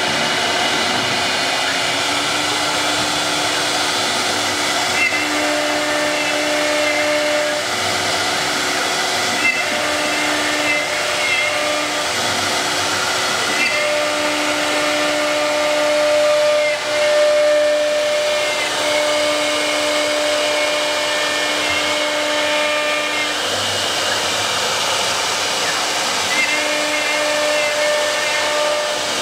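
CIMTECH 1325 wood CNC router cutting a board: a steady rush of spindle and cutting noise, with the pitched whines of its axis drive motors starting and stopping every few seconds as the gantry moves.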